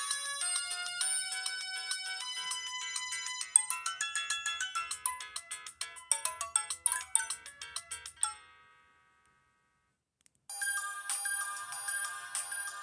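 Samsung SCH-U410 cell phone playing its built-in ringtones: a quick electronic melody runs until about eight seconds in and stops with a short fade, then after two seconds of silence another ringtone begins.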